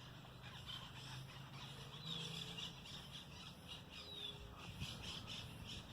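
Faint country ambience of scattered small-bird chirps and short falling calls, with a low steady hum underneath during the first half.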